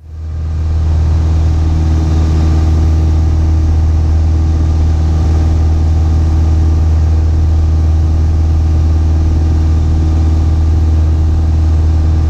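Piper Warrior's four-cylinder Lycoming O-320 engine and propeller running steadily in flight, heard from inside the cabin as a loud, even drone with a strong low hum.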